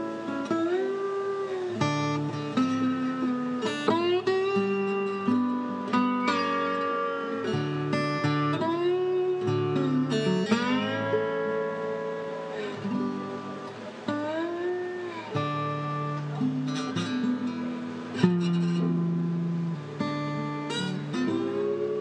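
Acoustic guitar playing an instrumental passage: plucked notes over a low bass line, with many notes sliding up and down in pitch.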